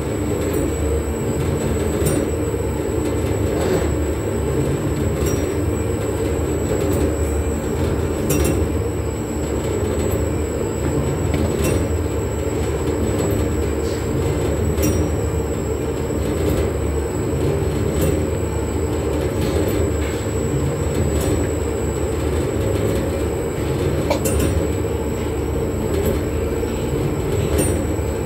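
Industrial mixer with stainless-steel cooling arms running steadily, churning thick xanthan gum paste: a continuous low mechanical rumble with a faint high whine and occasional faint clicks.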